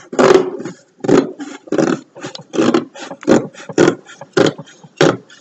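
Scissors cutting through the flaps of a cardboard box: a string of short crunching snips, about two a second.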